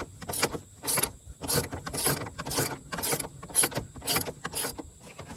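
Ratchet wrench with an 18 mm socket loosening a freshly broken-loose torque-mount bolt, the pawl clicking in short bursts about twice a second.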